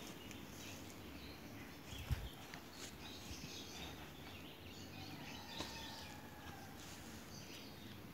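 Faint outdoor ambience with scattered distant bird chirps and a single soft thump about two seconds in.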